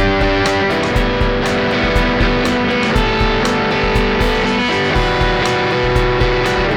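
Electric guitar played through an Xotic EP Booster pedal into a Vox MV50 AC amp: sustained, boosted chords that change a few times, over a steady rhythmic pulse.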